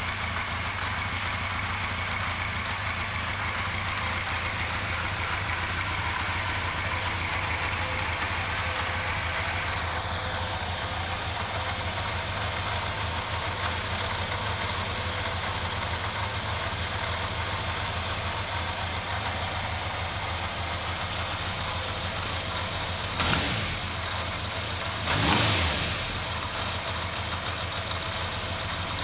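Four-cylinder motorcycle engine idling steadily with the tank off, during carburettor synchronisation. Near the end the throttle is blipped twice, the second rev a little longer, rising and falling back to idle.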